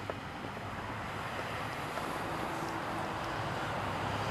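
Steady outdoor rushing noise with a faint low hum, slowly growing louder: wind on the microphone over distant road traffic.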